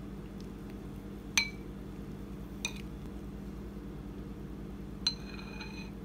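Metal spoon clinking against a ceramic soup bowl three times, each clink ringing briefly, the first, about a second and a half in, the loudest. A steady low hum runs underneath.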